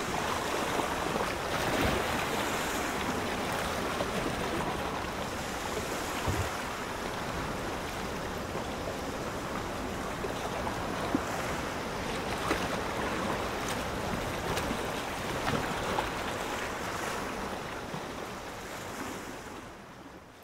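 Ocean surf, a steady rushing of waves that fades out near the end.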